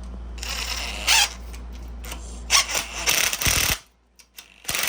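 A thread-taped 1/4-20 bolt being run into a plug hole on a 212cc Predator engine with a tool, in about three short noisy bursts.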